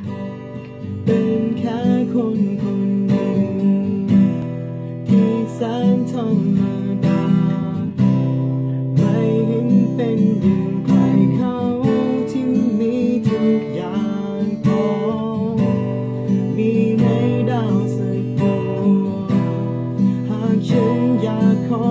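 Acoustic guitar strummed, playing a progression of chords.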